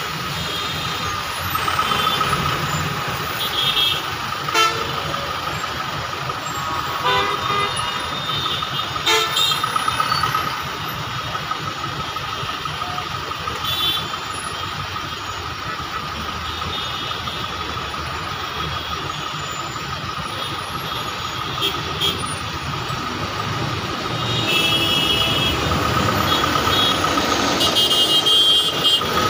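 Traffic jam din of idling and crawling buses, trucks and cars, with vehicle horns honking again and again. A longer stretch of honking comes in the last few seconds, where the din gets louder.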